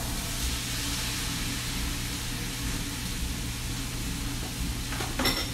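Drained chickpeas tipped into a hot frying pan of water-cooked onions, sizzling steadily.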